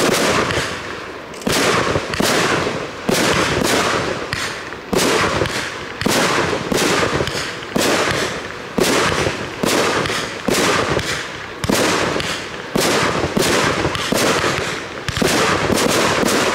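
Aerial fireworks firing in quick succession: a string of sharp bangs about one a second, each followed by a fading tail, with a quicker run of shots near the end.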